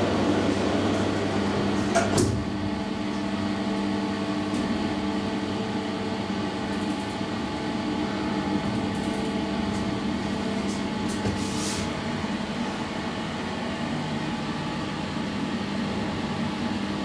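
2012 SMW traction elevator heard from inside the car: the doors shut with a knock about two seconds in, then a steady hum with several steady tones as the car travels.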